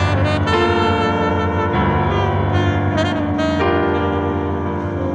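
Free-jazz duo improvisation: a tenor saxophone plays a line of held notes that change every half second to a second or so, over steady low notes from a Nord Stage keyboard.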